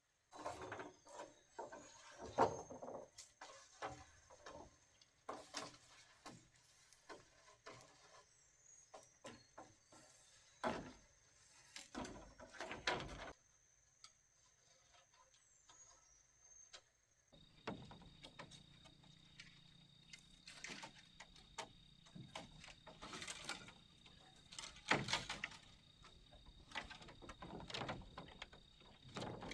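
Irregular knocks and clicks from handling or work, over a steady high-pitched whine that shifts lower about two-thirds of the way through.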